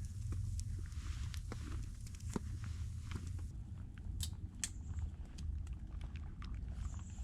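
Small wood fire of cedar kindling crackling and snapping, with irregular sharp pops, a few louder ones about four to five seconds in, over a low steady rumble.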